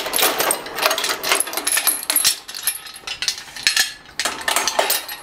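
Steel lifting chain clinking and rattling in quick, irregular metallic clicks as it is slackened and unhooked from a compressor hung on a shop crane, with a short pause about four seconds in.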